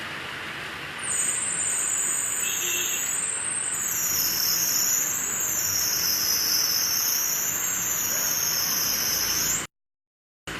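Heavy rain falling as a steady hiss. About a second in, a loud, high-pitched whine joins it, slowly rising and falling in pitch, and the sound cuts out abruptly near the end.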